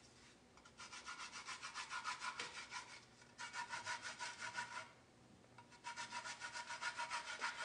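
Orange peel being zested: quick, rhythmic rasping strokes of the fruit against a zester, about five or six a second, in three runs with short pauses between them.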